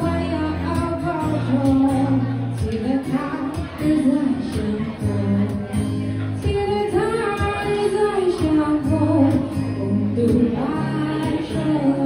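A woman singing a slow song while accompanying herself on acoustic guitar, the held guitar chords sounding under her voice.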